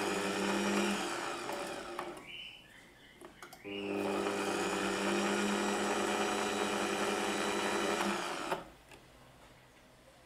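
Bosch MFW3640A electric meat mincer's motor running with a steady hum and whir, easing off about two to three seconds in. It is switched on again about four seconds in and runs until it cuts off abruptly near the end.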